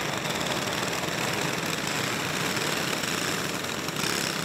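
Several go-kart engines running together at low speed, a steady mechanical rattle with no pauses.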